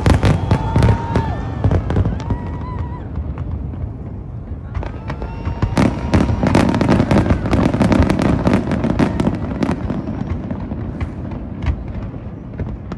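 Fireworks display: a dense run of bangs and crackles over a low, continuous rumble. It is loudest about six to nine seconds in and thins out toward the end.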